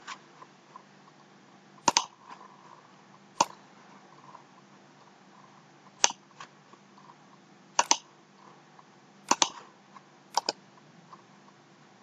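Computer mouse clicking: about half a dozen short, sharp clicks at irregular intervals, two of them coming as quick double clicks, over faint room tone.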